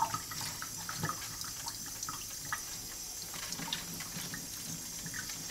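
Kitchen tap running into a sink while a whole raw fish is rinsed under it, with small splashes and knocks against the sink.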